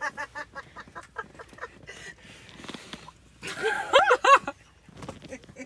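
A person laughing: a quick run of short pulses that fades over the first second or so, then a louder, high-pitched burst about four seconds in.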